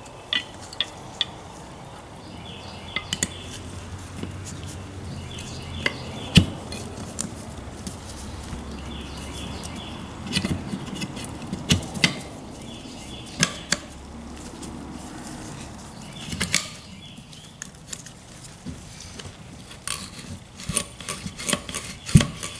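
Small metal clicks and taps as a spring and bar are fitted by hand into the receiver of a Marlin Model 88 .22 rifle, a test fit of parts taken from a Marlin Model 60. The clicks come scattered and spaced apart, then more often near the end.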